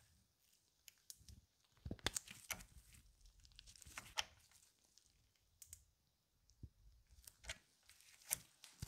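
Faint, irregular clicks and short scrapes of a hex key turning a threaded M5 steel screw-in sleeve into a wooden handle. There is a busier run of them about two seconds in, and a little rustle from gloved hands.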